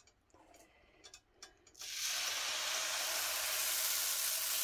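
A metal ladle clinks a few times in a steel pot of millet dosa batter. About two seconds in, batter poured onto a hot cast-iron dosa pan starts a loud, steady sizzle.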